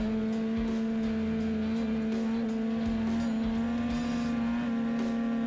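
Polaris 800 two-stroke snowmobile engine running at a steady high cruising speed, one even drone with a slight waver. Music with a regular beat plays along with it.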